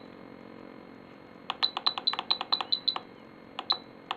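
Spektrum DX7 transmitter's menu buttons pressed rapidly to scroll through its settings screens, each press giving a short click with a brief high beep: a quick run of about ten presses about one and a half seconds in, then two more near the end.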